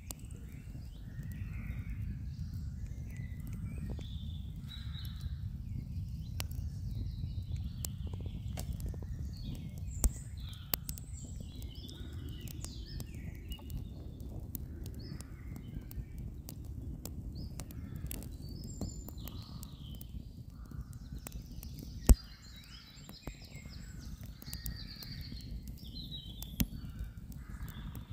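Sausages and salami cooking on a wire grill over campfire embers, with scattered small crackles and pops and two sharp knocks, about ten seconds in and, louder, about twenty-two seconds in. Birds call throughout over a steady low rumble.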